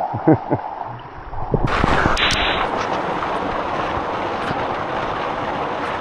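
Steady rush of falling water from a waterfall, coming in suddenly a little under two seconds in and loudest for a moment just after it starts.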